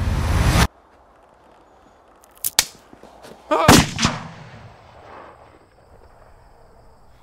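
Film-soundtrack gunfire: a rising rush of sound cuts off suddenly, then two sharp gunshots about two and a half seconds in. About a second later comes a louder shot-like burst with a wavering pitched tail that fades out.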